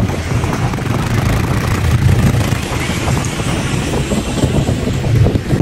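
Quad bike (ATV) engine running steadily while riding over sand.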